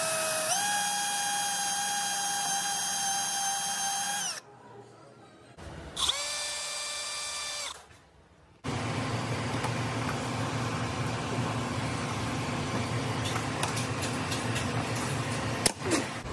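Electric drill whining steadily for about four seconds as an eighth-inch bit bores through stainless steel sheet metal, after a short rise in pitch as it spins up. A second, shorter and lower drill run follows about six seconds in, then a steady background hum with a few sharp clicks near the end.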